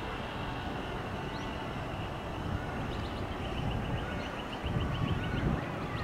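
Outdoor background: a steady low rumble, with a rapid run of short high chirps, about five a second, through the second half.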